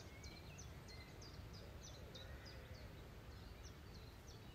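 Faint outdoor ambience: a small bird calling in a steady series of short, high, down-slurred chirps, about three a second, over a low rumble.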